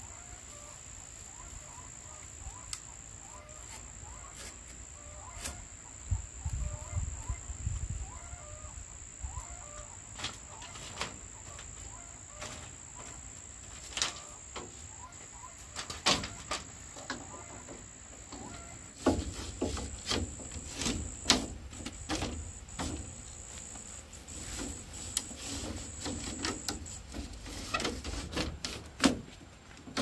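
A steady high-pitched insect drone, with scattered sharp knocks and clatter that become busier about two-thirds of the way through.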